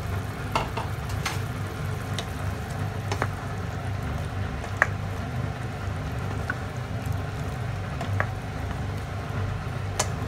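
Soy-vinegar adobo sauce bubbling at a simmer in a pot, with sharp pops every second or two over a steady low hum.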